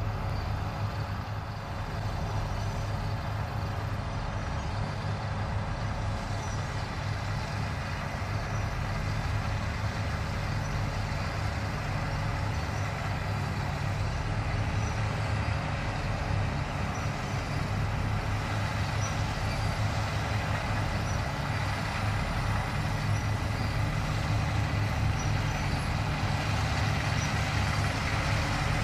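Fendt 9T combine harvester running steadily while harvesting: a continuous deep engine hum with steady higher tones, slowly getting louder.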